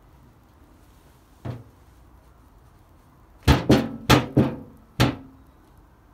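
Morris Minor's steel bonnet panel flexing and denting under someone standing on it. A faint knock comes about a second and a half in, then five loud ringing knocks in quick succession.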